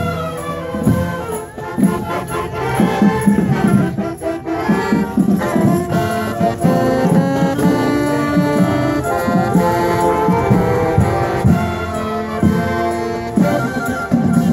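Marching band playing a tune on clarinets, saxophones and brass as it marches, with percussion keeping a steady beat.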